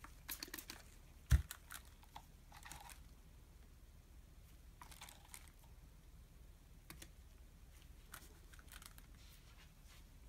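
Light handling noises: scattered soft clicks and rustles, with one sharper knock just over a second in.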